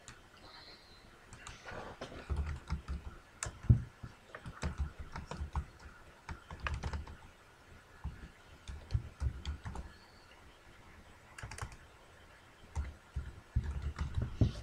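Typing on a computer keyboard: irregular runs of quick keystrokes with dull knocks, broken by short pauses.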